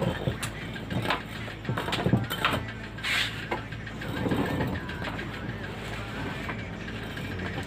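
Hand tools and metal engine parts clinking and knocking at irregular intervals during assembly of a Suzuki Satria F motorcycle engine, over a steady low hum.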